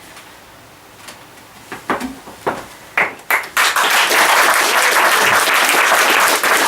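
Audience applauding: quiet at first, then a few scattered claps, swelling into full, steady applause about three and a half seconds in.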